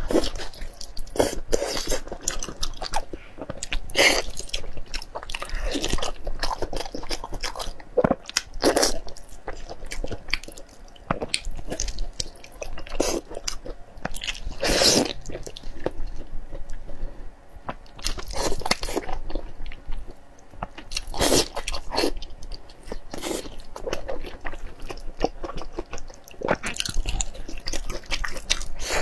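Close-miked eating: a person biting, tearing and chewing a large piece of saucy braised meat held in the hands, the bites coming at irregular intervals.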